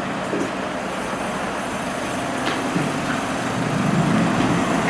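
Steady rumble of a road vehicle's engine and traffic noise, swelling a little near the end.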